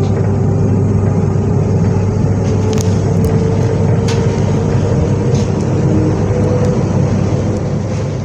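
Z 20500-series (Z2N) electric multiple unit's steady hum, with several held tones and a few faint clicks about three to four seconds in.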